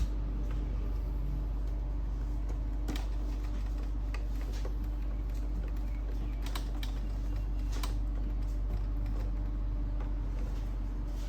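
A few scattered small clicks and taps of plastic printer parts being handled and fitted during print-head replacement, over a steady low hum.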